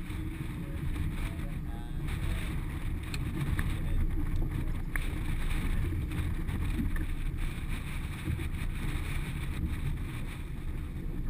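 Wind buffeting the microphone over water slapping against a small boat's hull, a steady low rumble with a few faint clicks.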